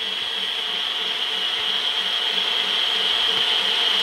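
KitchenAid Heavy Duty stand mixer running, its wire whisk beating egg whites into meringue: a steady high whine with a regular beat about three times a second.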